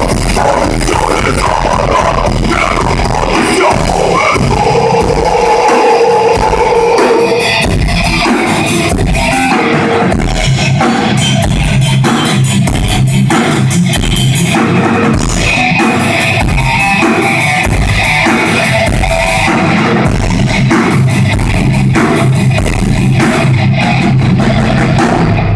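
Heavy metal played by a band on distorted electric guitars and drum kit, with a steady fast drumbeat; it stops abruptly at the end.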